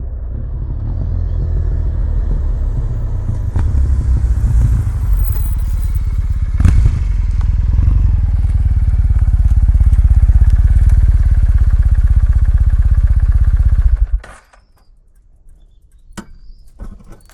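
Kawasaki W800's air-cooled parallel-twin running through its stock mufflers, growing louder over the first few seconds. It cuts off suddenly near the end, followed by a few light clicks.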